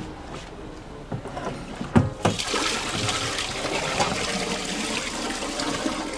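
Portable toilet cassette tipped up on end over a dump point: a couple of hard plastic knocks as it is handled, then rinse water pouring out of its spout in a steady rush from about two seconds in.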